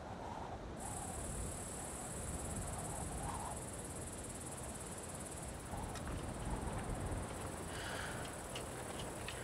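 Insects chirring in a steady, high-pitched drone that sets in about a second in, over a low rumble of ambient noise, with a few faint clicks near the end.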